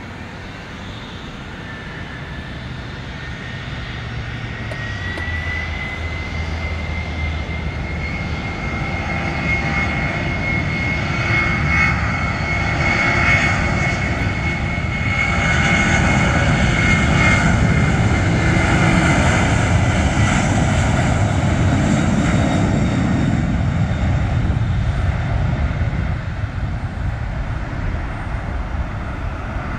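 A Boeing 767-200 freighter's twin jet engines spooling up to takeoff thrust, with a rising whine that then holds steady, and a deep rumble that builds as the jet accelerates down the runway. The sound is loudest about halfway through and fades slightly near the end as the aircraft lifts off.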